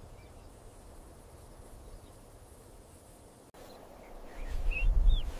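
Open-air savanna ambience: a faint steady hiss, then, after a cut about three and a half seconds in, a louder low rumble with a few short, high bird-like chirps.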